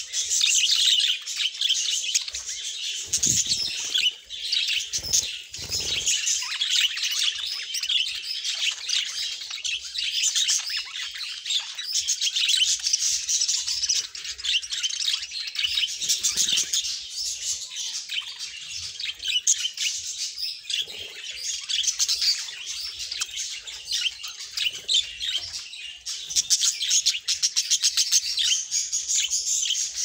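A flock of budgerigars chattering, a dense, unbroken mass of high chirps and warbles from many birds at once.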